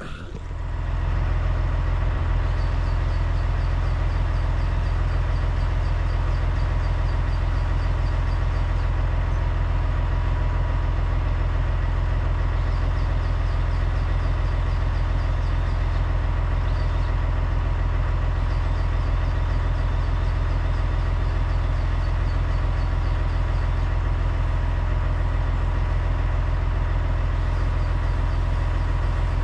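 Massey Ferguson tractor engine idling steadily.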